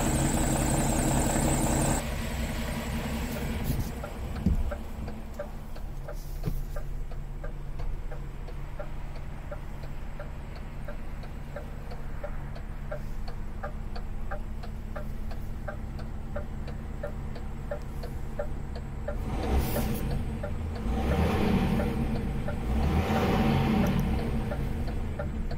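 DAF XF 480 truck's straight-six diesel engine idling, loud and close for the first two seconds and then more muffled from inside the cab. A light ticking about twice a second runs over it. The engine sound swells louder in the last few seconds.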